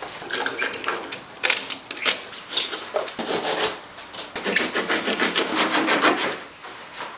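A hand tool scraping and rasping at hardened expanding foam in irregular back-and-forth strokes, trimming away the excess foam.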